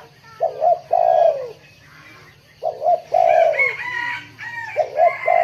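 Spotted dove cooing three times, each call a short coo followed by a longer coo that falls away at the end. Fainter, higher chirps from another bird come in the middle.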